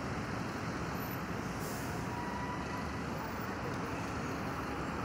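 Steady outdoor city background noise: an even, low rumble of distant traffic with no distinct events.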